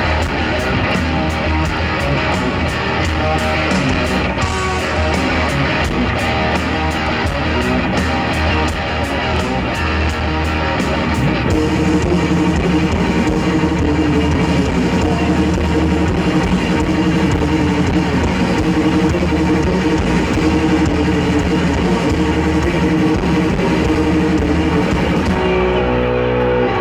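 Live rock band playing, led by electric guitar over bass and drums. About a third of the way in the sound turns fuller and heavier.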